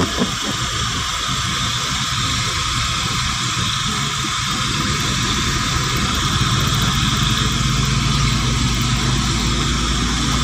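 Car engine and tyres running on a wet road, heard from inside the cabin: a steady low engine hum under road noise, rising slightly about halfway through.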